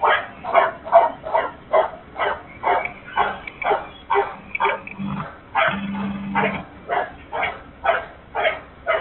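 A dog barking over and over, about two barks a second, heard thinly through a security camera's microphone.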